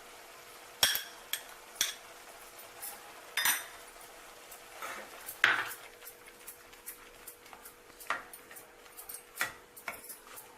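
A metal utensil clinking and scraping against a kadhai while masala is added and stirred, irregular knocks with the loudest about a second, three and a half and five and a half seconds in.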